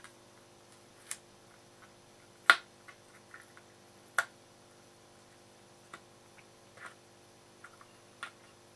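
Scattered sharp clicks and taps of steel tweezers and tiny metal parts against the work surface as a small rivet pin and paper are handled, about six in all, the loudest about two and a half seconds in.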